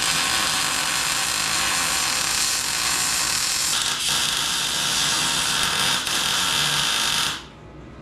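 MIG welder laying a continuous weld bead: a steady hiss from the arc that stops abruptly after about seven seconds, as touch-up welding on the steel frame.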